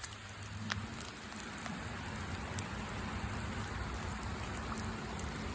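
Steady rain falling and pattering, an even hiss with scattered small drop clicks.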